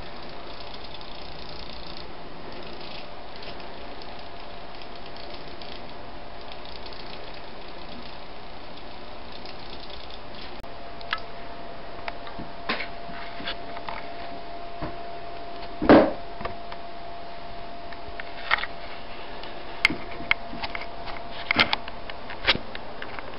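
Small hobby servo motors humming steadily as they keep the accelerometer-controlled platform level while the chassis is tilted by hand. Several sharp knocks and clicks of the wooden frame come in the second half, the loudest about two-thirds of the way through.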